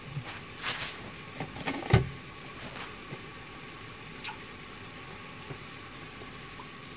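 Quiet kitchen background of a pan of rice noodles cooking on an electric hob, with a low steady hum. A few light knocks and clicks come in the first two seconds, the loudest about two seconds in.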